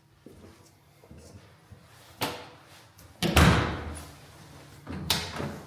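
A door being handled, with three sharp knocks or bangs about two, three and five seconds in; the middle bang is the loudest and rings on briefly in a small room.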